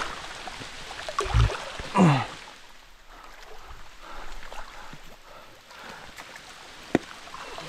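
Handling noises in a boat: a dull knock about one and a half seconds in, a short low vocal sound just after it, and a sharp click near the end, over faint moving water.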